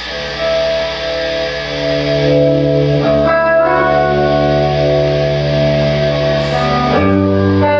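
Electric guitar playing slow, held chords through a hall reverb patch on an FV-1 reverb development board. The notes ring out and overlap, with higher notes joining partway through and a change of chord near the end.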